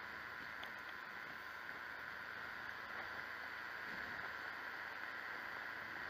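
Steady rushing noise of a motorcycle on the move, wind and engine blended into an even hiss with no change in pitch or level.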